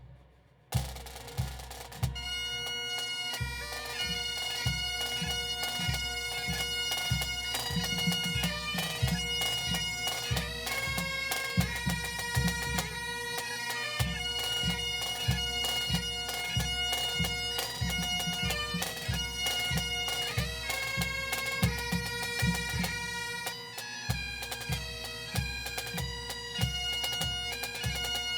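Pipe band of bagpipes and drums playing a military medley of armed-forces songs: a few drum strikes open it, then the bagpipes come in about two seconds in with their steady drone and melody over regular bass drum beats.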